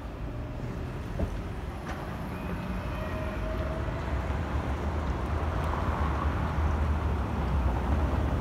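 Steady low rumble of city street traffic, growing a little louder toward the end, with a faint brief thin tone about three seconds in.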